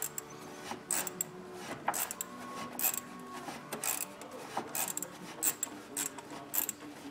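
Socket ratchet clicking in short, uneven strokes as a thermostat housing bolt is run down snug.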